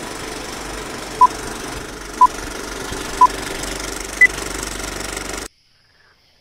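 Film projector sound effect: a steady mechanical whirr and clatter, with three short beeps a second apart and a fourth, higher beep a second later, as in a film-leader countdown. It all cuts off suddenly about five and a half seconds in.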